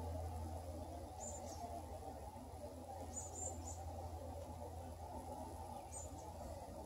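Faint steady low hum and haze, with a few short, high chirps now and then.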